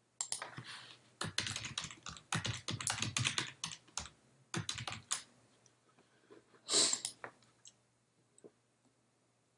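Typing on a computer keyboard: quick runs of key clicks for about five seconds, then one louder click near seven seconds in and a faint tick or two after.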